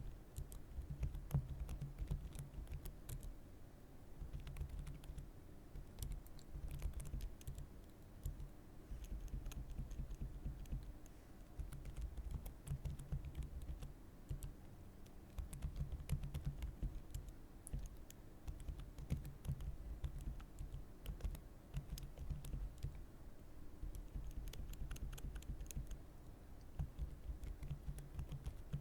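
Typing on a computer keyboard: rapid keystrokes in runs, broken by brief pauses every few seconds.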